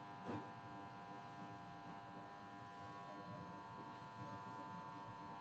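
Faint steady electrical buzz, a stack of even tones running without change, with one soft click about a third of a second in.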